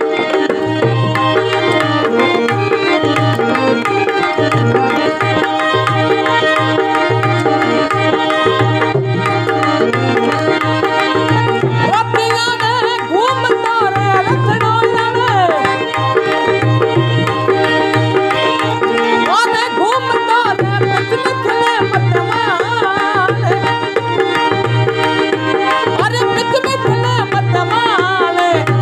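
Rajasthani devotional folk music: hand drums keep a steady beat under sustained held chords. About halfway through, a wavering, bending melody line comes in over them.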